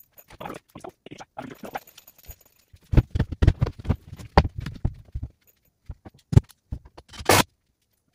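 Knocks, thumps and clatter of a person moving about and handling framing lumber and tools. Scattered light knocks give way in the middle to a dense run of heavy thumps, then one sharp knock and a short noisy burst near the end.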